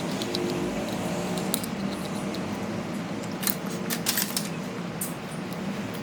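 Small hard clicks and taps of hand tools at a phone repair bench, in a quick cluster about three and a half to four and a half seconds in, over a steady low hum.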